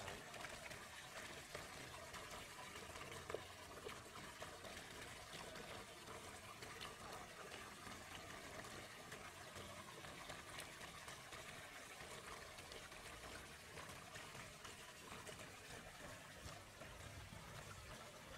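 Faint trickling and splashing of water, with one sharp knock about three seconds in.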